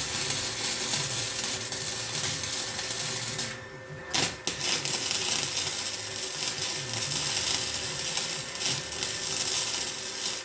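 Electric arc welder laying a weld bead on the Jeep's steel frame, a steady dense crackling sizzle. The arc breaks off briefly about three and a half seconds in, then strikes again with a sharp crack and runs on.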